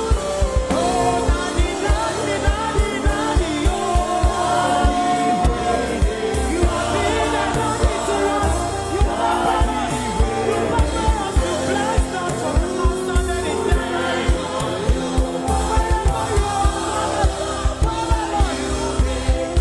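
Gospel worship music: group voices singing over a band with a steady drum beat.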